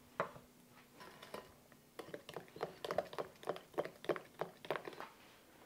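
A spoon stirring batter in a glass mixing bowl, giving a run of faint clinks and scrapes against the glass, several a second, from about two seconds in.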